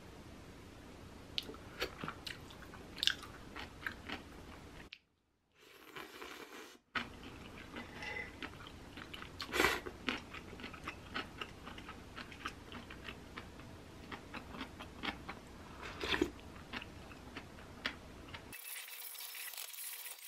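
Eating noodle soup with chopsticks: a string of small clicks of chopsticks against a ceramic bowl, with chewing. Near the end, a kitchen tap runs into a sink.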